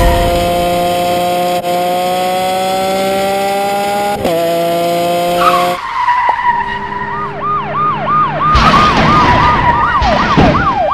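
Added sound effects for a toy police chase: a car engine runs steadily, its pitch slowly creeping up, then breaks off about halfway. A police siren then yelps in a fast up-and-down cycle, and a loud rushing, skid-like noise joins it near the end.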